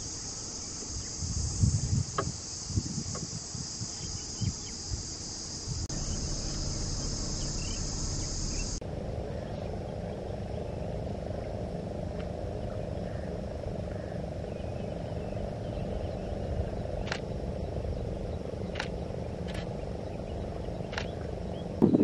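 Outdoor field ambience with a steady high-pitched insect drone that cuts off suddenly about nine seconds in. After that comes a steady low background hum with a few faint ticks. Low bumps from wind on the microphone sound in the first few seconds.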